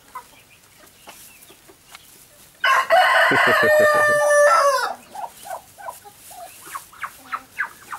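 A rooster crows once, a loud call of about two seconds starting about two and a half seconds in. Softer clucking from the chicken flock runs around it.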